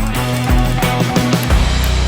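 Background rock music with a steady beat, electric guitar and bass.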